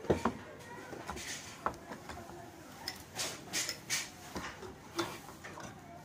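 Metallic clicks, knocks and short scrapes from a fan heater's coiled-wire heating element frame being handled and worked with a screwdriver at its thermal cutout contacts. A sharp knock comes right at the start, with a run of quick scraping strokes around the middle.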